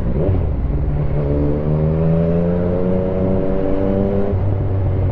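Yamaha MT-09's three-cylinder engine pulling under way, its note rising slowly for about three seconds, then dropping back about four seconds in.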